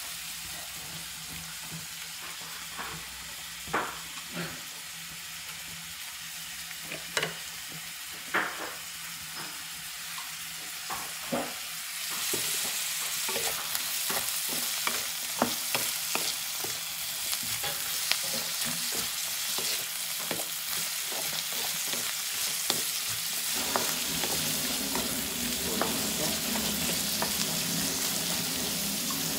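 Carrot strips, onion and ginger frying in a hot pan, a steady sizzle with scattered scrapes and taps of a spatula stirring them against the pan. The sizzle grows louder about twelve seconds in.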